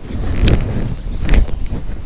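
Wind buffeting the microphone in low gusting rumbles, with a couple of sharp knocks about half a second and just over a second in.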